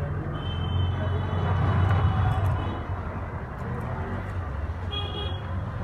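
Low background rumble like passing traffic, swelling about two seconds in and then easing, with short high thin tones over it.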